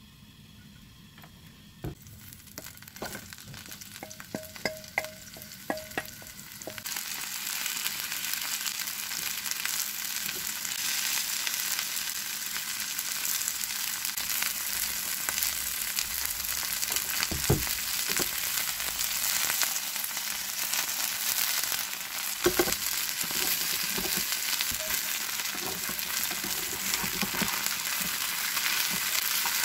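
Garlic chive and shrimp pancake batter frying in hot oil in a pan: a steady sizzle that starts about seven seconds in as the batter hits the oil, with a couple of knocks against the pan midway.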